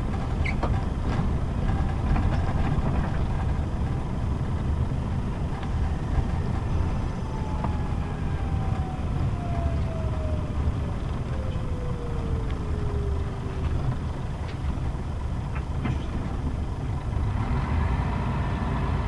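Inside a moving Scania K124 city bus: the rear-mounted straight-six diesel running with steady road noise, with a whine that slides slowly down in pitch around the middle and a few short rattles.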